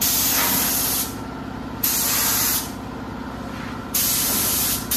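Compressed-air spray gun spraying clear coat in three hissing bursts of about a second each, the hiss starting and stopping sharply as the trigger is pulled and released. A low steady hum runs underneath.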